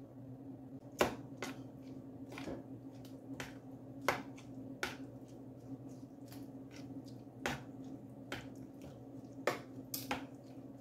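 Kitchen utensils clicking and tapping: about a dozen sharp, irregular clicks over a steady low hum.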